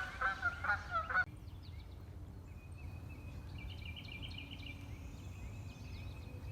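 Geese honking several times in quick succession over the first second, then stopping. After that a low steady background with faint, high, rapidly repeated bird chirps.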